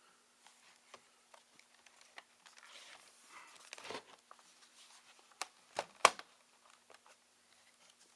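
Clicks, taps and rustling from the plastic and metal parts of a ThinkPad T61 laptop and small tools being handled during disassembly, with a few sharper clicks about five and a half to six seconds in.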